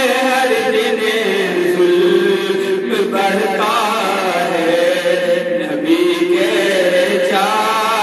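A man singing a naat, an Urdu devotional song in praise of the Prophet, solo into a handheld microphone. His voice holds long, wavering notes that slide from pitch to pitch, with no instruments.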